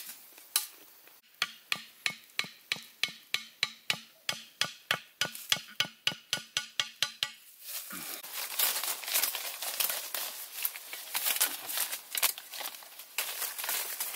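Machete chopping in a quick steady rhythm, about four strokes a second, each blow a sharp knock with a faint ring; the chopping stops about halfway through. Rustling and scraping of leaves and twigs follows, with scattered light knocks.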